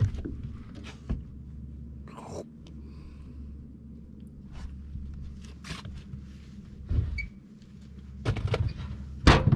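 Scattered knocks and thumps aboard a small fishing boat, with a louder cluster of them near the end, over a steady low hum.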